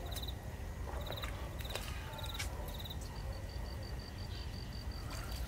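Insects chirping in short, evenly pulsed high trills, one trill running on steadily from about three seconds in, over a low steady rumble and a few faint rustles.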